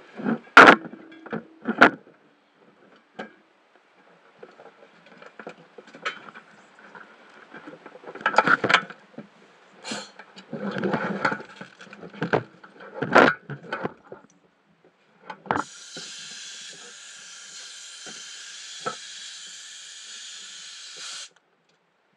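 Irregular knocks and rubbing against the housing of a head-mounted underwater camera. Then a steady hiss runs for about five seconds and stops abruptly.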